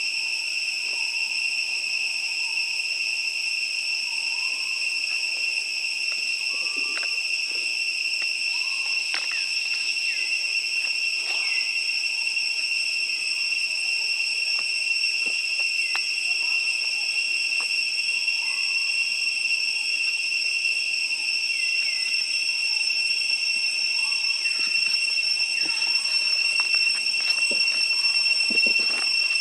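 Steady high-pitched insect drone from the surrounding vegetation, with a few faint short calls and clicks scattered through it.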